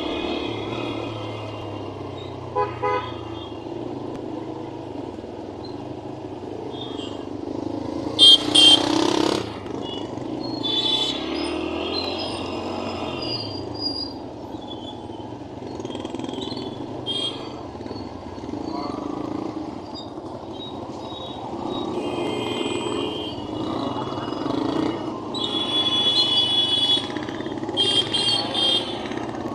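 Busy street traffic running steadily, with vehicle horns honking several times. The loudest honks come about eight seconds in, and there is a run of them near the end.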